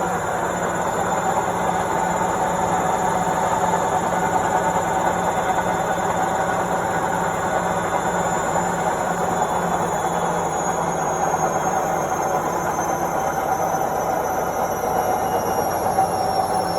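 Washing machine on its spin cycle at full speed: a steady mechanical whir with a faint high whine that slowly drops in pitch.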